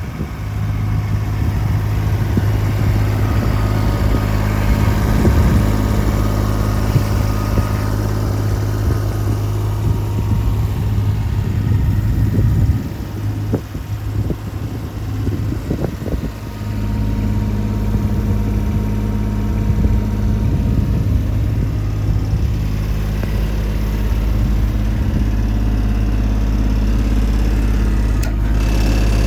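Engine of a Tadano/Nagano Kogyo NUL060-2 truck-mounted aerial work platform running steadily with a low hum. The engine note drops for a few seconds about halfway through, then comes back with a slightly different pitch. There is a single click near the end.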